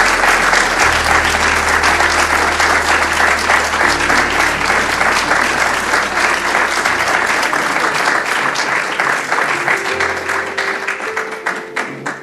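Audience applauding, the clapping thinning out and stopping near the end, over background music with sustained low notes.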